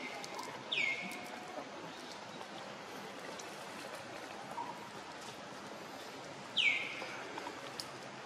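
Two short, sharp bird chirps, each sweeping downward in pitch, the first about a second in and the second about six seconds later, over a steady outdoor background hiss.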